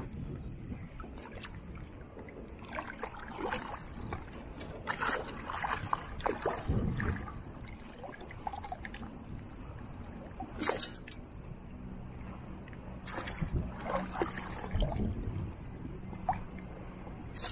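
Shallow bay water sloshing and splashing around a wading metal detectorist and the detector's shaft, close to the microphone, in irregular splashes. A faint low hum runs underneath for a few seconds past the middle.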